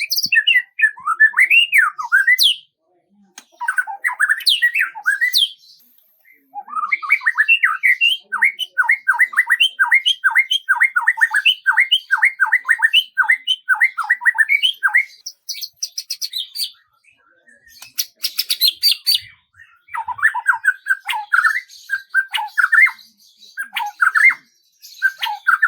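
Songbird singing in phrases separated by short pauses: a long run of quick, evenly repeated notes that each slide downward in pitch, and later higher, buzzier, twittering phrases.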